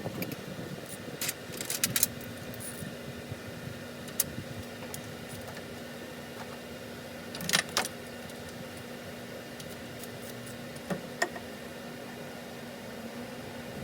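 Scattered metallic clinks and taps of hand tools and parts being handled, over a steady background hum with a faint steady tone.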